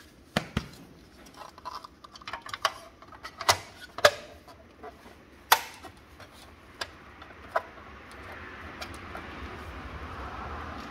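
Hard plastic clicks and knocks as the black plastic cover of a Brother HL-L2321D laser printer's laser scanner unit is fitted back into place by hand: about seven sharp snaps and taps, spread unevenly through the first eight seconds. After that comes a soft, steady rustle that grows toward the end.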